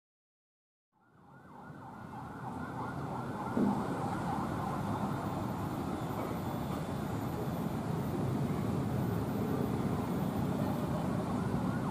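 CC 201 diesel-electric locomotive running as it approaches hauling a passenger train. The sound fades in about a second in and then holds steady.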